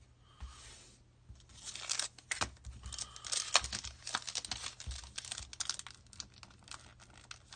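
A foil trading-card booster pack wrapper being torn open and crinkled, with many quick sharp clicks and crackles as it is handled.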